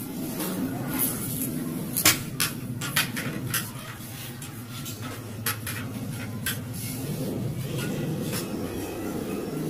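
Sharp metallic clicks and knocks from aluminium sliding-door frame sections being handled and fitted, several in quick succession a couple of seconds in and a few single ones later, over a steady low rumble.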